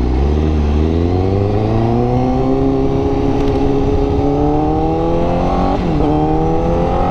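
Honda CBR1000RR-R Fireblade's inline-four engine pulling away from a stop, its pitch rising steadily through first gear. About six seconds in there is a quick upshift to second, a brief drop in pitch, and it climbs again.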